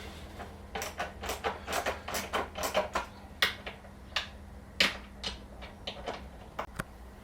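Quick, irregular metallic clicks and knocks from hand tools working the 10mm bolts under a motorcycle's rear mudguard assembly, densest in the first few seconds and then sparser.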